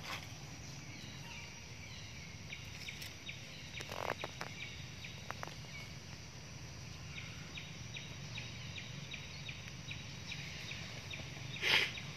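Outdoor ambience: a steady low hum under a short high chirp repeated about three times a second, which pauses in the middle and starts again. A few sharp clicks about four seconds in, and a short loud rustle near the end.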